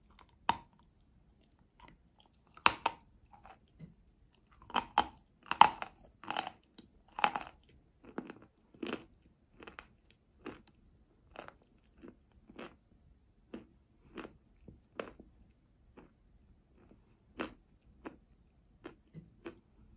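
Someone bites into a piece of chalk coated with brown paste, then chews it: a sharp crack, a run of loud crunches a few seconds in, then steady crunching chews about once a second that grow softer as the chalk breaks down.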